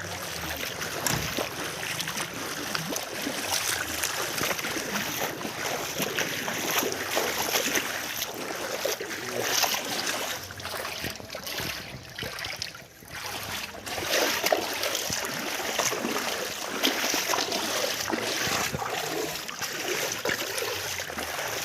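Floodwater rushing and splashing over a submerged road, a continuous watery rush with many small irregular splashes.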